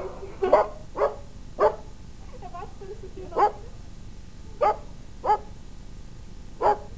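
A puppy barking: seven short barks at uneven intervals.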